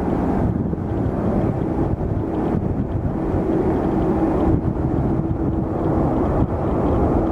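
Jet engines of an arriving Boeing 787-8 Dreamliner running as a steady rumble with a held humming tone, with wind buffeting the microphone.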